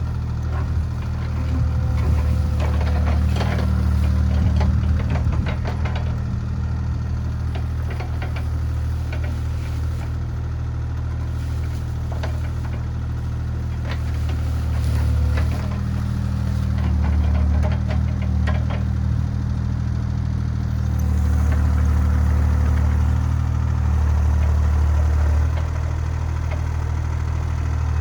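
Diesel engine of a compact earthmoving machine running steadily, rising in level in several stretches as it takes load. Scattered knocks and clanks sound over it in the first several seconds.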